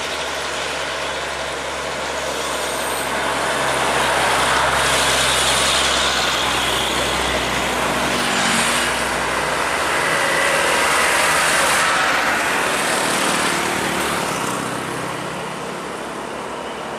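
Heavy road traffic, with diesel trucks and motorcycles passing on a highway. The mix of engine drone and tyre noise grows louder through the middle and eases off near the end.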